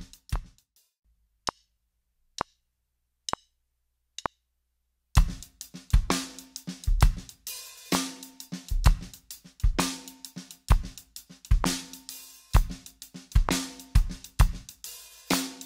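DW Performance drum kit playing a groove with hi-hat, snare and bass drum that stops about half a second in; four evenly spaced clicks count in, and the kit groove starts again about five seconds in and runs on steadily.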